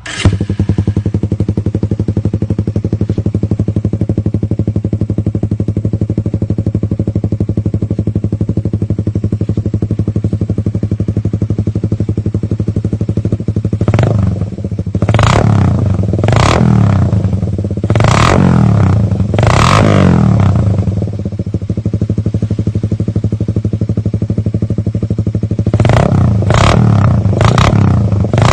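Suzuki Raider 150 single-cylinder four-stroke motorcycle engine idling through an aftermarket exhaust, then revved in a series of about five quick throttle blips in the middle and a few more near the end.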